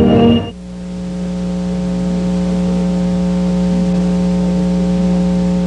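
Music cuts off about half a second in, giving way to a steady low hum: one held tone with a row of overtones above it that swells in over about a second, then stays level and unchanging.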